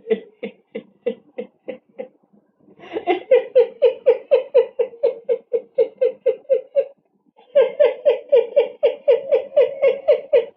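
A person laughing in rapid, evenly spaced, high-pitched bursts of about four or five a second: a soft run at the start, then two long loud runs from about three seconds in, with a short break between them.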